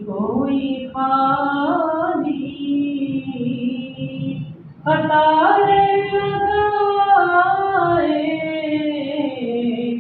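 A man reciting a naat unaccompanied, singing long, drawn-out melodic phrases, with a short breath pause about halfway through.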